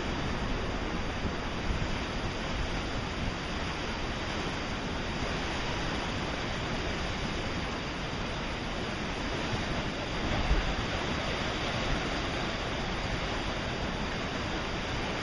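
Ocean surf breaking on a rocky shore: a steady rush of waves, with a louder surge about ten seconds in.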